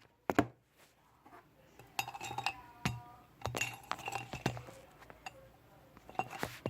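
Small hard objects clinking and tapping against each other several times, some taps leaving a brief glassy ring, in two clusters about two and three-and-a-half seconds in.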